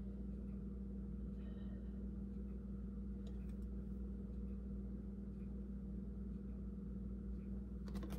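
Steady low hum of kitchen room tone, with a couple of faint clicks near the end; the oil being poured makes no clear sound of its own.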